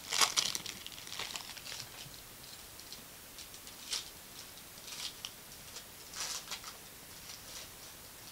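Foil trading-card pack crinkling loudly as it is pulled open in the first half second, then a few faint rustles and clicks as the cards inside are handled.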